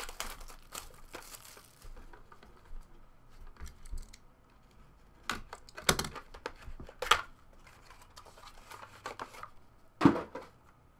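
Hands handling trading cards in hard plastic cases and their plastic wrapping: scattered clicks, taps and crinkling, with a few louder plastic clacks about halfway through and again near the end.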